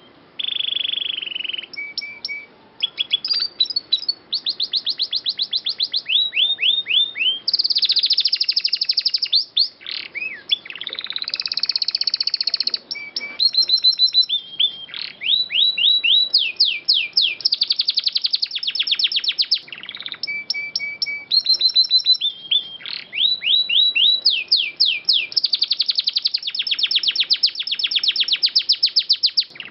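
Domestic canary singing a long, continuous song of rapid trills and quickly repeated whistled notes, with fast rising and falling sweeps.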